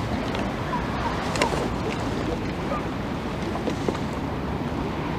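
Steady wind rushing over the microphone, with a few faint clicks.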